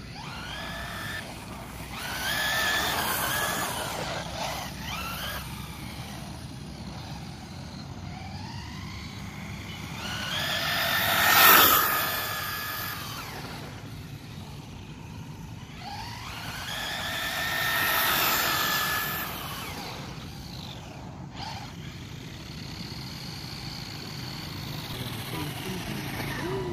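ZD Racing 1/10 RC car's RacerStar brushless motor whining as the car speeds past three times, each pass rising and then falling in pitch. The middle pass, about eleven seconds in, is the closest and loudest.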